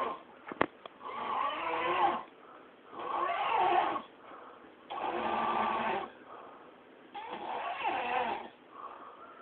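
Snoring in a steady rhythm: four snores, each about a second long, roughly two seconds apart.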